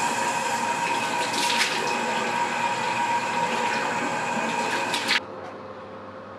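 Water running from a bathroom sink's mixer tap and splashing over hands held under the stream. It stops abruptly about five seconds in, leaving a faint steady hum.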